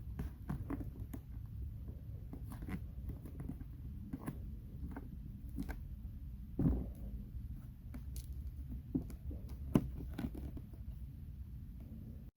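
Hands working vinyl wrap film over a Tolex case: scattered light clicks, taps and crinkles, over a low hum. A louder knock comes about two-thirds of the way through and a sharp click shortly after.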